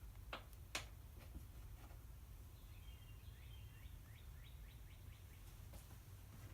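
Near silence with a low steady hum, broken by two sharp clicks near the start, then a faint run of quick bird chirps around the middle.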